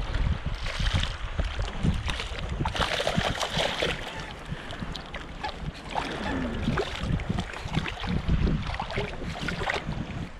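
Strong wind buffeting the microphone in uneven gusts, over the hiss of surf on the beach; the hiss swells for about a second, three seconds in.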